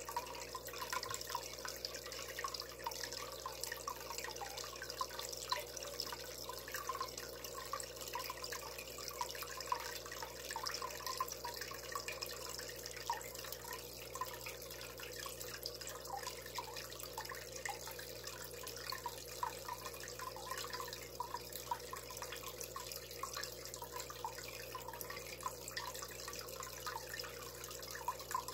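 Water trickling and bubbling at the pond's filter, a steady splashing with many small drips.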